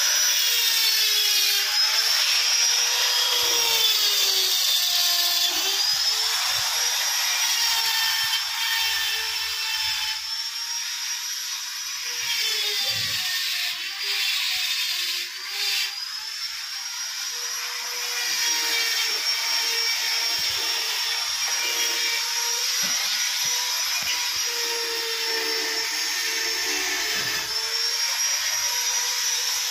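Handheld rotary die grinder carving white marble: a steady high whine whose pitch dips and recovers again and again as the bit bears into the stone.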